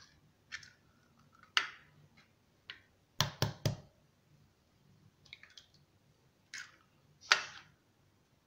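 Two eggs being cracked into an amber glass bowl: a series of sharp taps of eggshell against the bowl. Three quick knocks come about three seconds in, and the loudest crack comes near the end.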